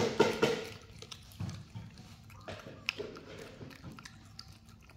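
Macaques chewing and crunching dried shrimp. There is a quick run of loud crunches in the first half second, then softer, scattered crunches and clicks.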